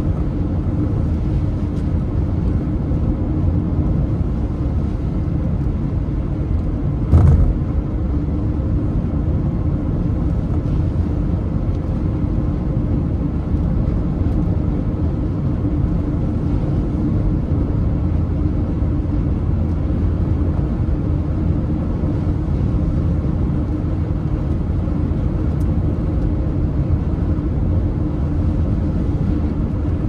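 Steady low road and wind rumble inside a car travelling at highway speed in strong typhoon winds, with one brief thump about seven seconds in.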